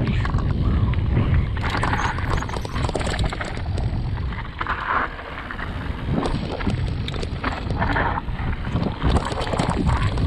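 Wind buffeting the GoPro's microphone on a fast mountain-bike descent, over the rumble of tyres on the dirt trail and constant rattling knocks from the Radon Swoop 8.0 AL enduro bike.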